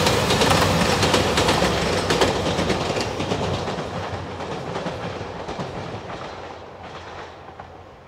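A three-car JR Shikoku 2700 series diesel limited express train passing, its wheels clattering over the rail joints, fading steadily as it pulls away.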